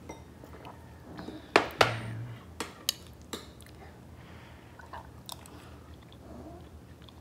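Someone eating champorado with a metal spoon from a ceramic bowl: two sharp knocks about a second and a half in, then a few lighter clinks of the spoon on the bowl and soft chewing.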